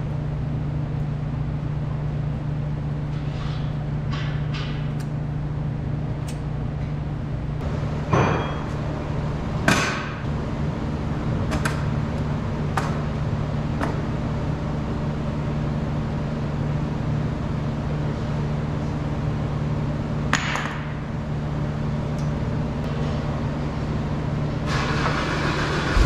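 A handful of sharp metallic knocks and clicks from hand tools and steel bearing parts being handled on a forklift mast during a bearing change, the two loudest about eight and ten seconds in, over a steady low hum.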